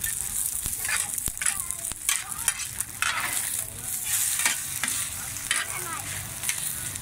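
Cubes of rice-flour cake sizzling in oil on a large flat iron pan, with two metal spatulas scraping and tapping against the pan as they turn the pieces, two or three strokes a second over a steady high hiss.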